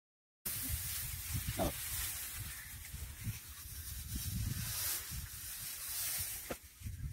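Dry rice straw rustling as paddy stalks are pulled and handled at a straw stack, a hissing crackle with a couple of sharper snaps, over a low uneven rumble; it starts abruptly about half a second in.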